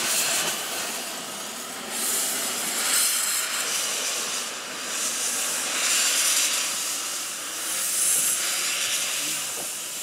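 Saxon IV K narrow-gauge steam locomotive blowing steam from its open cylinder drain cocks: a continuous loud hiss that swells roughly every two to three seconds.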